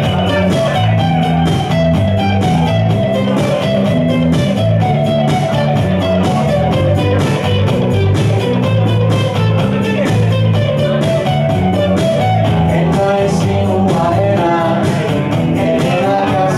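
Live blues-rock from an electric guitar and an electric bass played through amplifiers, the bass stepping through steady notes under the guitar's lines. A man's voice starts singing near the end.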